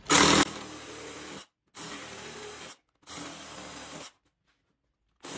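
Ryobi cordless reciprocating saw cutting through a wooden board in short runs of about a second each, with a loud burst at the very start and abrupt silences between runs. It is squaring off the rounded bottoms that circular-saw cuts left in the board's finger joints.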